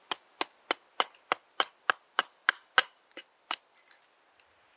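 Hultafors Ågelsjön mini hatchet chopping into a small piece of wood held upright on a chopping block: quick, light, sharp strikes about three a second, taking wood off to rough out a blank for carving. The chopping stops about three and a half seconds in.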